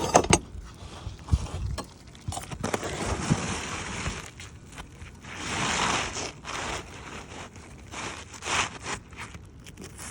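Irregular scraping and knocking on asphalt roof shingles as they are worked by hand and tool during a shingle repair attempt, with a few sharp knocks early on and longer rasping scrapes about three seconds in and again past the middle.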